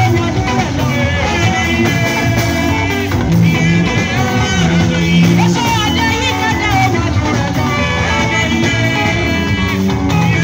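Live band music played loud through a PA system: a woman singing lead into a microphone over keyboard accompaniment.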